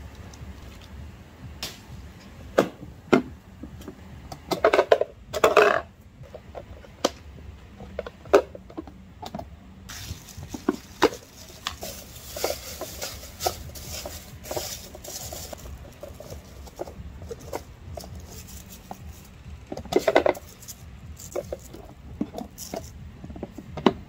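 Small plastic waste bin being handled: sharp plastic knocks and clatters, loudest about five seconds in and again near twenty seconds, with a plastic bin liner rustling in between as it is fitted, and the lid pressed down near the end.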